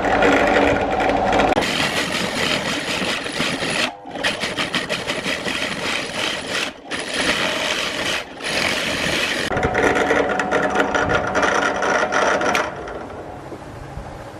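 Drill press running a large Forstner bit boring holes into a plywood board: a dense rasping cut with fast chatter over the motor's steady whine. The cut breaks off briefly about four, seven and eight seconds in, and turns quieter near the end.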